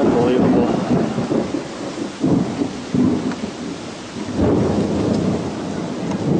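Strong storm wind gusting against the camcorder microphone near a tornado, a loud rushing rumble that swells in several surges over a steady hiss.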